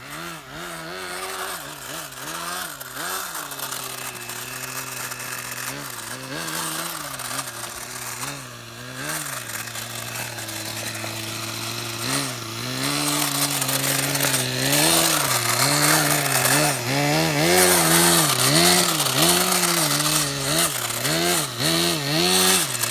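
Small glow-fuel (nitro) engine of a 1/12-scale Blizzard GP RC car being driven around a track, its pitch rising and falling over and over as the throttle opens and closes. It gets louder about halfway through, and from then on it revs up and down about once a second.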